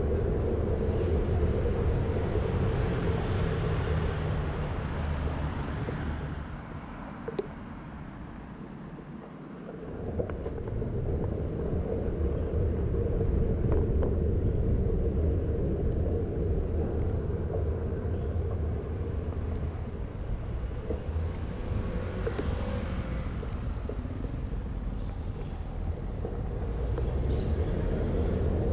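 Wind rumbling over the microphone of a camera on a moving bicycle, with tyre and road noise, a steady hum and the sound of city traffic. The rumble eases off for a few seconds about a quarter of the way in, then builds again.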